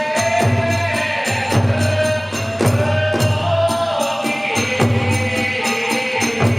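Kagura hayashi music: a taiko drum beating about once a second, small hand cymbals (tebyoshi) clashing rapidly, and a bamboo flute playing a held, wavering melody.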